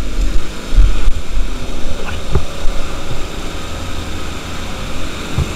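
Fire pump engine running steadily, mixed with the hiss of water spraying from a fire hose, with heavy low thumps in the first second and a half.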